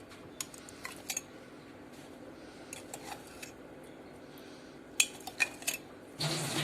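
Metal utensil clinking and tapping against dishes a few scattered times, then near the end a steady scraping of the utensil in the cake pan starts as the chocolate topping is spread over the cake.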